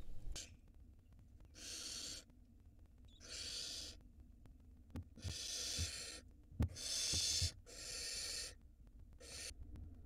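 Barn owl nestlings hissing: about six rasping, breathy calls, each under a second, typical of the chicks' food-begging. Two or three soft knocks fall among them.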